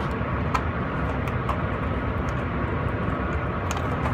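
Steady low rumble of range background noise, with a few faint light clicks and taps of gear being handled.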